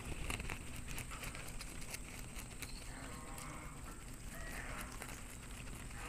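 Rabbits chewing fresh green leaves close to the microphone: rapid small crisp crunching and clicking bites.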